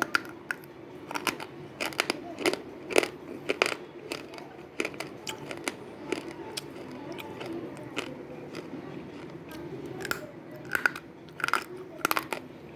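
Slate pencil being bitten and chewed close to the microphone: sharp, brittle crunches at irregular intervals, in clusters.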